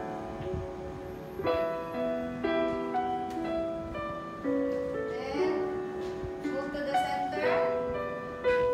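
Instrumental background music: a slow melody of held notes changing about every half second to a second.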